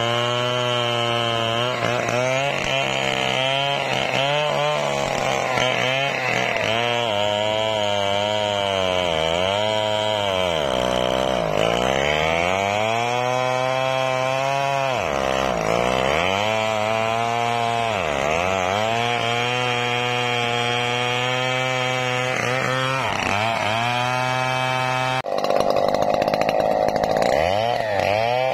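Two-stroke chainsaw cutting into the base of a sonokeling (Indonesian rosewood) trunk. The engine's pitch sags deeply several times as the chain bites and picks back up between. Near the end the sound changes abruptly to a steadier, higher run.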